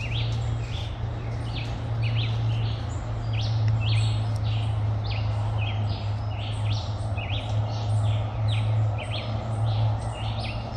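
A chorus of small animals chirping: many short, high chirps, each sliding down in pitch, repeating two or three times a second from several overlapping callers, over a steady low hum.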